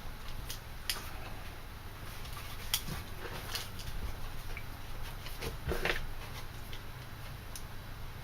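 Scattered light clicks and taps of a steel Leatherman Sidekick multi-tool and its pocket clip being handled, a small cluster of them about two-thirds of the way through, over a low steady hum.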